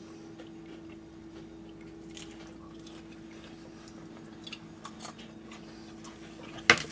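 Faint chewing of a mouthful of crunchy coleslaw (shredded cabbage and carrot) over a steady low hum. A sharp click comes near the end.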